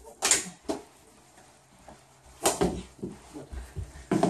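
Plastic mini hockey sticks slapping and scraping on carpet as two kneeling players scramble for the ball, in three sharp bursts about two seconds apart with lighter knocks between.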